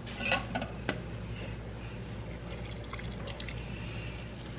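Two light clinks in the first second, then lemon halves squeezed by hand, the juice dripping into a slow cooker of chicken in broth.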